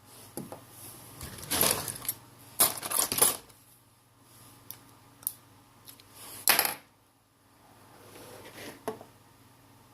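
Small hard tools and parts clicking and clattering on a workbench as they are picked up and set down: a cluster of knocks in the first few seconds, a louder knock past the middle and a few light clicks near the end.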